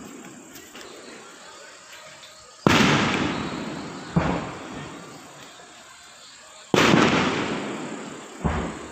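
Aerial fireworks shells bursting: four sharp bangs roughly two seconds apart, each followed by a long rolling echo that dies away slowly. The first and third bangs are the loudest.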